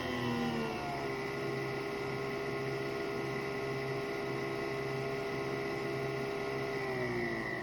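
Nespresso Vertuo Pop+ motor spinning the capsule during a brew, a steady whine. It falls in pitch in the first second, holds steady, then slows and drops in pitch again near the end.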